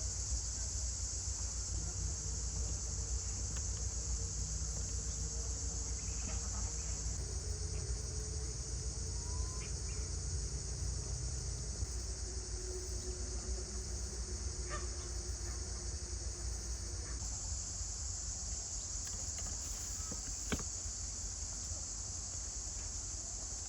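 Steady high-pitched insect chorus, like crickets, with a few faint clicks over a low rumble.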